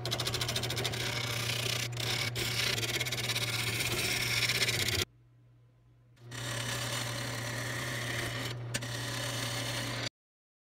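Wood lathe cutting a spinning wood blank with a turning tool: a steady scraping hiss of wood being shaved over the lathe motor's low hum. The cutting drops away for about a second midway, resumes, and cuts off abruptly near the end.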